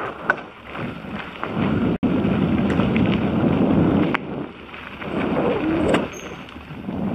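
Wind rushing over a helmet-mounted camera's microphone while a mountain bike rolls fast over gravel, the rush swelling and easing with the ride, with a few sharp clicks and rattles from the bike. The sound cuts out for an instant about two seconds in.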